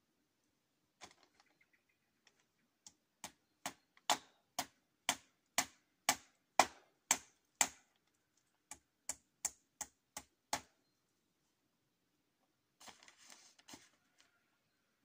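Hammer driving nails into the hut's wooden frame: two runs of sharp blows about two a second, each run starting with lighter taps and growing harder, then a brief rustling clatter near the end.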